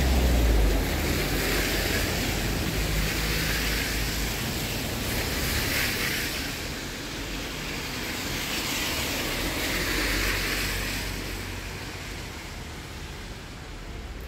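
Road traffic passing on a wet street: tyres hissing on the wet surface, swelling three times as vehicles go by, with a low engine rumble near the start.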